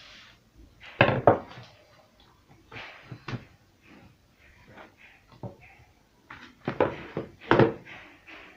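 Knocks and thumps of kitchen handling on a wooden tabletop: a wooden rolling pin set down and a ball of dough brought out of a plastic bowl and dropped onto the floured table. The loudest knocks come about a second in and again near the end, with lighter taps between.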